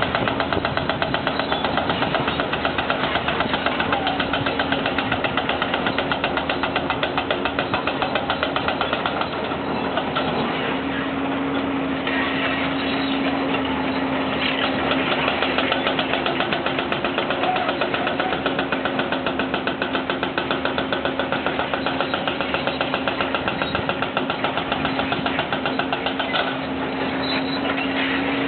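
A heavy engine of road-construction machinery running continuously, with a rapid, even pulsing several times a second over a steady hum.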